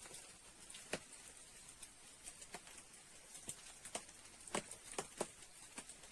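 Faint, irregular sharp clicks and pops, scattered about one to three a second and sometimes in quick pairs, over a low steady hiss.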